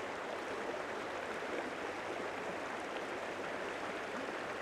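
Shallow forest stream flowing steadily over rocks, an even rushing of water.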